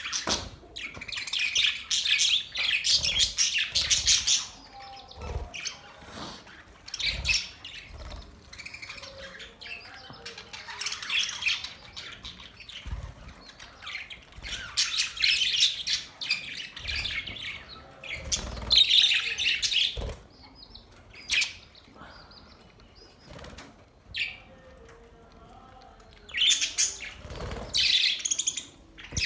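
Budgerigars chattering and chirping in bursts of a few seconds, with quieter gaps between them.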